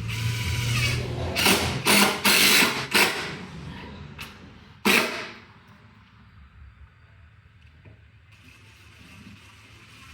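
Power driver driving stainless steel wood screws: the motor whirs up, then gives several short loud bursts as the screws are run in. It goes quiet about halfway through.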